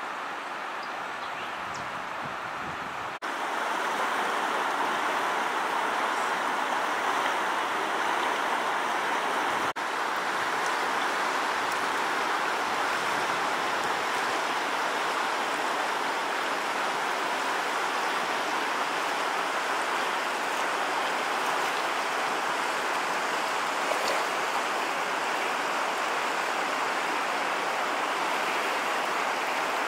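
Steady rushing of the St. Francois River in flood, its water running fast over rapids. Quieter for the first three seconds, then louder.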